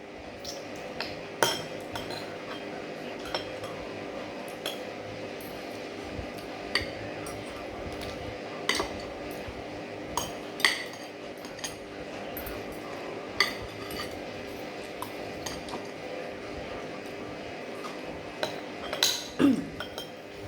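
Cutlery clinking against a plate during a meal, a sharp clink every second or two, over a steady background hum.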